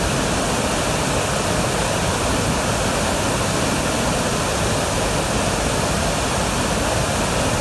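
A large waterfall in heavy flood, brown silt-laden water pouring over a rock ledge onto boulders: a steady, loud rush of falling water.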